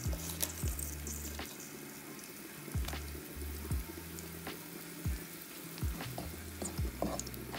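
Flour sizzling in hot fat in a pan as a spoon pushes into it, making a steady hiss with irregular clicks and scrapes from the spoon. This is the start of a roux for a white sauce.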